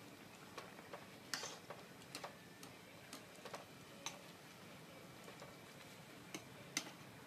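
Metal ladle clinking against the inside of a stainless steel pot as soup is stirred: light, irregular clicks, about a dozen, the sharpest about a second in and another near the end.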